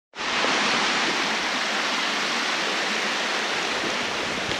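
Shallow creek water running in a thin sheet over a sandstone slab, a steady rushing that starts abruptly right at the start.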